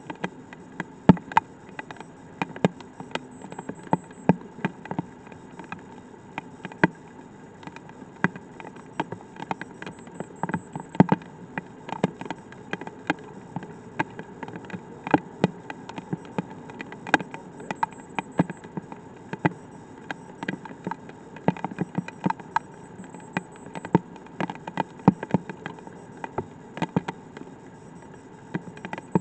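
Light rain: raindrops tapping irregularly close to the microphone, several sharp ticks a second, over a steady faint hiss.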